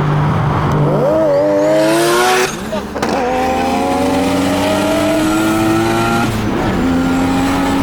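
Turbocharged rotary-engined car accelerating hard from a steady cruise, its engine note rising through the revs. There are two quick upshifts, about two and a half seconds in and again near six and a half seconds, each with a brief drop in pitch before it climbs again.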